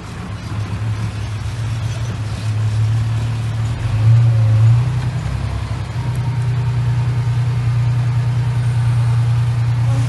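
Heavy diesel engine of a tipping dump truck running steadily with a deep hum, getting louder over the first seconds and rising briefly in pitch and loudness about four seconds in.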